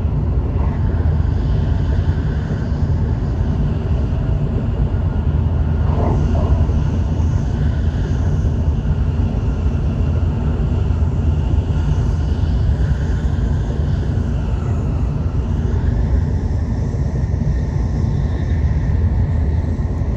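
Tokaido Shinkansen train running, heard from inside the passenger car: a steady low rumble of the running gear, with faint whines that slowly rise and fall in pitch above it.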